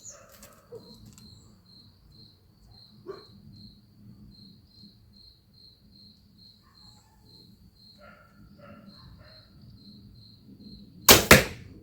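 Crickets chirping steadily, about four pulses a second, with faint dog barking. Near the end comes one loud sharp double crack: a traditional Korean horse bow loosed, its string snapping, and the arrow striking the target a fraction of a second later.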